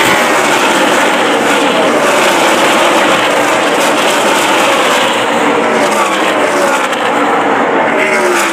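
NASCAR Truck Series race trucks' V8 engines at racing speed, several running past together, their engine notes sliding down in pitch as they go by.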